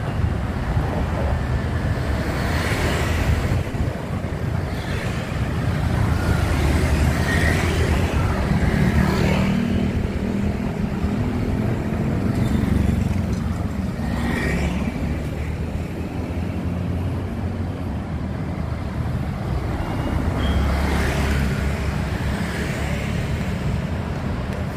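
Street traffic: a steady rumble of engines and tyres, with several vehicles passing close by, one after another.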